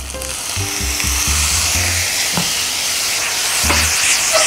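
Water poured into a hot wok of fried rice sizzles loudly as it hits the pan, building up about half a second in. A spatula stirs the rice through the hissing. The water is added to loosen the Thai chilli paste so it coats the rice evenly.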